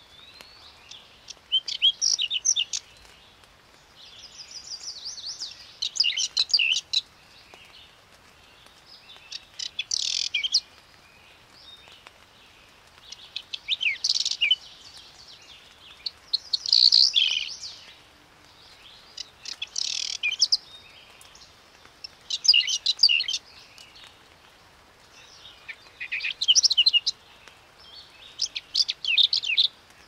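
Whinchat singing: short phrases of quick, high notes, each about a second long, repeated every few seconds with pauses between, about nine phrases in all.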